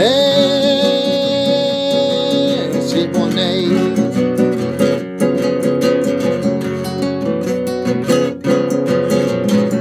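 Nylon-string classical guitar strummed in a steady rhythm. A man's voice holds one long sung note with vibrato over it for the first two or three seconds, then the guitar plays on alone.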